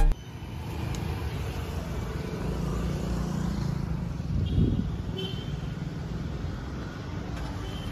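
Street traffic: a steady low rumble of passing vehicles' engines and tyres, with one vehicle swelling louder about halfway through.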